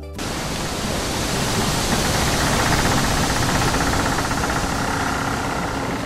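A steady rushing noise with a faint low hum under it, swelling a little toward the middle.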